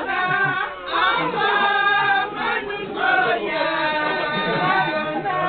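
A group of voices chanting together in song, many voices overlapping, in phrases with short breaks about a second and three seconds in.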